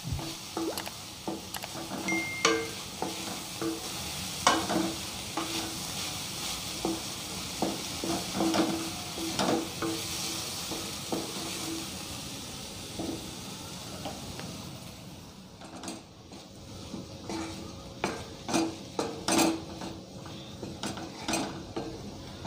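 A wooden spatula stirs and scrapes shredded cabbage stir-fry (cabbage poriyal) around a metal kadai, knocking irregularly against the pan, over the sizzle of frying. The cabbage is in its last stage of cooking. The frying hiss drops away about two-thirds of the way through, while the stirring knocks go on.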